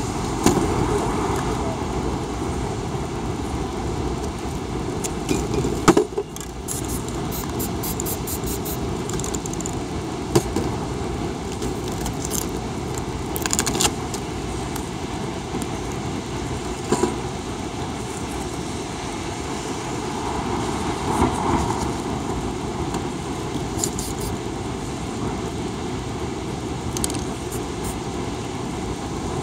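Steady city traffic noise, with a few sharp clicks and metallic clinks now and then as spray-paint cans are picked up, shaken and set down on the table and the painted sheet is handled.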